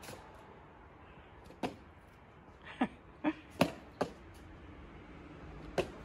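Akita dog giving short, sharp barks: one, then four close together in the middle, then one more near the end.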